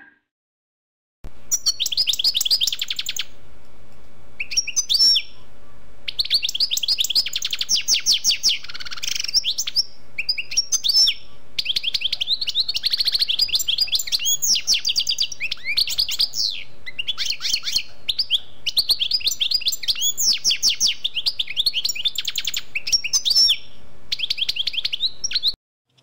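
A songbird singing a long, high-pitched song of rapid trills and chirps in phrases broken by short pauses, over a faint steady hum. It starts about a second in and cuts off abruptly just before the end.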